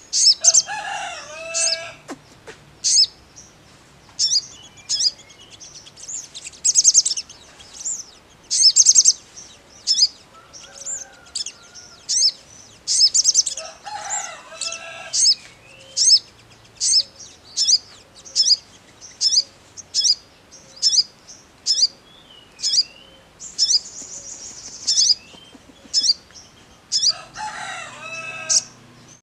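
Male olive-backed sunbird (sogon) singing in bursts: a long run of sharp, high chirps, about one a second, broken by short fast trills and by longer chattering phrases near the start, in the middle and near the end.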